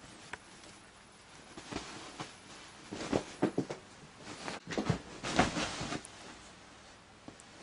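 Soft rustling and muffled thumps of a kitten pouncing and diving into a fabric duvet, in clusters about two, three and five seconds in.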